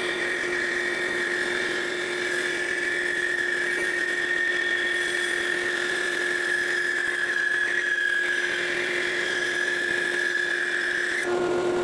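Band saw and dust collection vacuum running together while a board is cut, a steady machine hum with a constant high whine over it.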